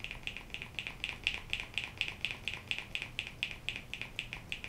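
Plastic pump dispenser on a tinted-moisturizer bottle clicking rapidly and evenly, about six clicks a second, as it is pumped over and over without giving out any product: the pump has not yet primed.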